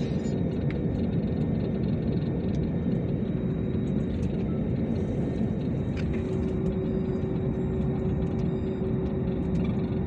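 Steady low rumble of an airliner's jet engines and airflow, heard inside the passenger cabin as the plane takes off and climbs, with a faint steady hum over it.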